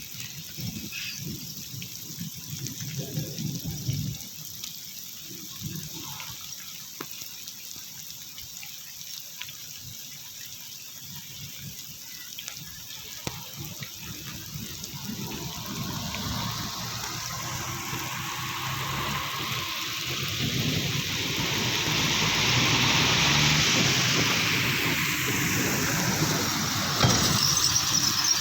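Rain with running, pouring water, steady at first and growing louder in the second half.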